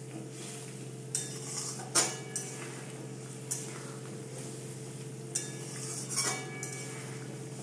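Metal spatula stirring a thick potato curry in a metal kadai, knocking and scraping against the pan in a handful of sharp clinks, the loudest about two seconds in. A steady low hum runs underneath.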